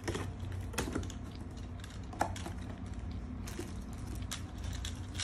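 Scattered light clicks and clatter of hard plastic toy train-track pieces and a small toy car being handled and knocked together.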